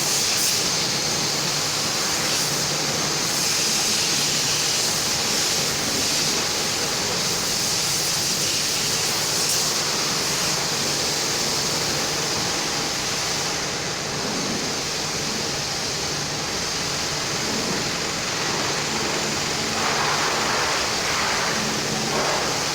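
High-pressure washer gun spraying water onto a car: a steady hiss of spray.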